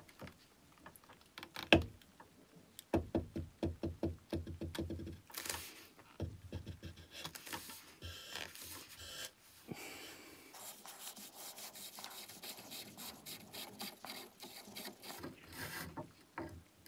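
Brass fitting on the threaded burner tube of an 1889 G. Barthel blowtorch being unscrewed by gloved hand. There is a sharp knock about two seconds in, then a quick run of clicks, then a long metallic rubbing and scraping of the threads as it turns.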